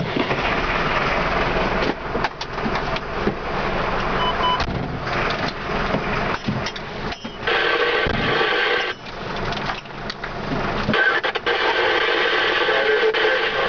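Fire truck's engine running, heard from inside the cab, with a steady mix of engine noise and cab rattle. Two short electronic beeps sound about four seconds in.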